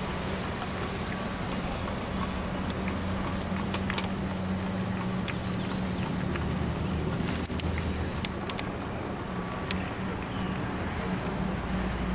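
Aerial tramway car running along its track rope: a steady low mechanical hum under a rushing noise, with a wavering high whine and a few scattered clicks.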